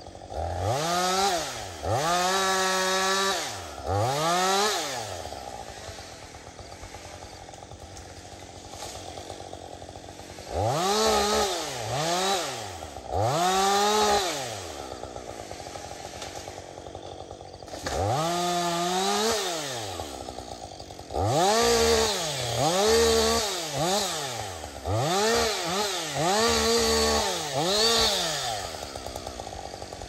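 Two-stroke chainsaw cutting in short bursts. It revs up and drops back to idle about a dozen times, in four groups, with a few seconds of idling between groups.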